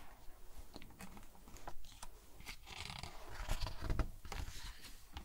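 A page of a hardcover picture book being turned by hand: the paper rustles and crinkles in irregular bursts, busiest in the middle.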